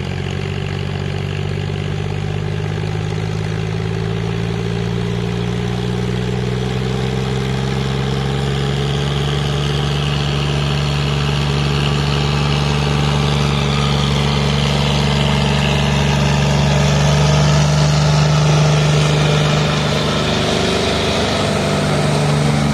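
John Deere tractor's diesel engine running steadily under load as the tractor churns through deep paddy mud on cage wheels. It grows louder as it approaches, then drops a little about twenty seconds in.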